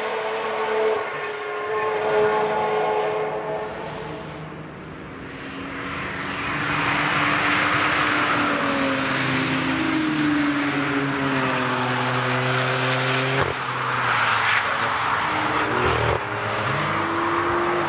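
Several cars' engines passing one after another, their engine notes rising and falling and overlapping; one goes by close about eight seconds in with a loud rush of engine and tyre noise.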